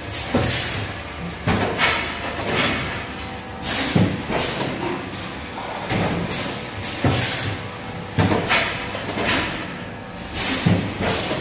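REI 22VGF automatic cup filling and sealing machine running through its cycle: repeated clunks of the mechanism and sharp bursts of air hiss, a hiss about every three seconds, over a faint steady hum.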